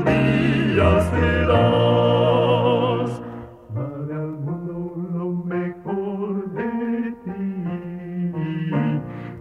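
Vocal quartet singing a Christian song in harmony. The singing is full and loud for about three seconds, then drops to a softer passage of shorter held chords.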